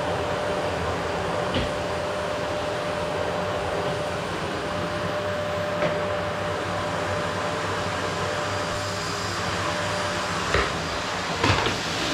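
Vacuum cleaner running steadily while vacuuming a wooden floor: a dense, even rushing noise with a steady whine. A few short knocks come through it, the loudest two near the end.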